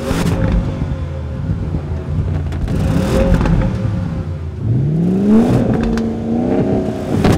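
Performance SUV engines idling at a drag-race start line, a steady low drone, with one engine revved up about five seconds in, its pitch rising and then held.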